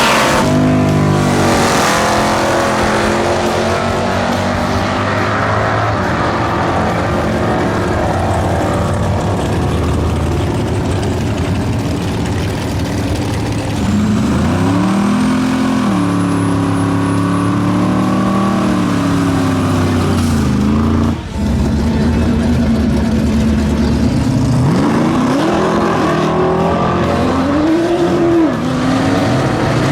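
Drag-racing car engines running loud at the strip, idling and revving with the pitch sweeping up and down several times. A thin high whine rises over the engine partway through, and the sound breaks off abruptly about two-thirds of the way in before another engine carries on revving.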